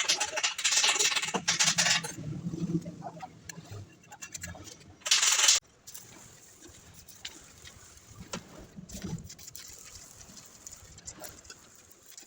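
Two bursts of loud hiss, the first lasting about two seconds and the second about half a second midway, followed by faint clicks and knocks.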